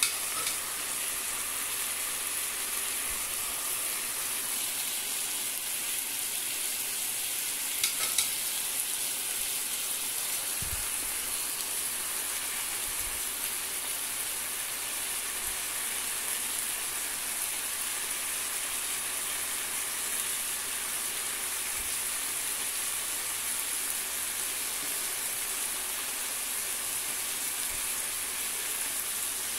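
Boneless chicken breasts frying in a pan, a steady sizzling hiss, with a few short clicks of metal tongs against the pan at the start and about eight seconds in.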